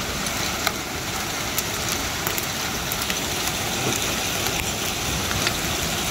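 Hail and rain pouring down in a steady rush, with scattered sharp clicks of hailstones striking.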